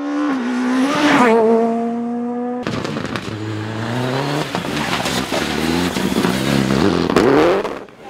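Rally car engines at full throttle on a tarmac stage, in two shots: first one car revs up and shifts gear about a second in, then a Citroën DS3 rally car comes off the throttle into a corner and revs hard out of it near the end, with a few sharp cracks from the exhaust.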